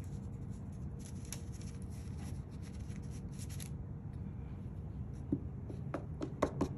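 Hands working a metal dog-bone cookie cutter through soft dough: scratchy rubbing as dough is worked out of the cutter, then a quick run of light clicks and taps near the end as the cutter is pressed into the dough on the mat.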